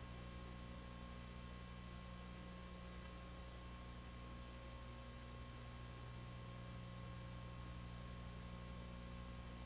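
Faint steady electrical hum with an even hiss: the background noise of an old video recording, with no other sound standing out.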